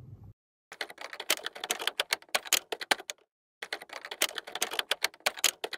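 Rapid typewriter-style typing clicks, in two runs of about two and a half seconds each with a short break between.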